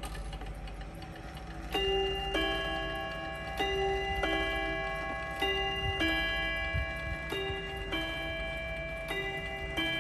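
William L. Gilbert tambour mantel clock striking the hour on its two nickel-silver rods, set off by turning the minute hand to twelve: each stroke is a bing-bong pair, a higher note then a lower one, ringing on. The movement ticks at first, and the pairs begin about two seconds in, about one every two seconds, five of them.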